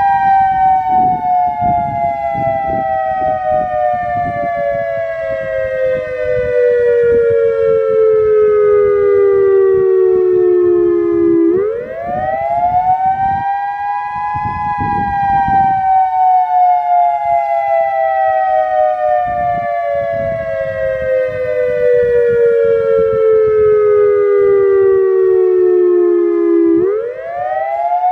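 Federal Signal EOWS-1212 electronic outdoor warning siren sounding a loud two-tone chord that slides slowly down in pitch for about eleven seconds, then sweeps quickly back up. This happens twice, with the chord climbing again at the very end.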